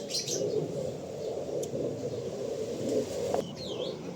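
Small birds chirping a few times, with short sharp calls near the start and a swooping call about three and a half seconds in, over a steady low background noise.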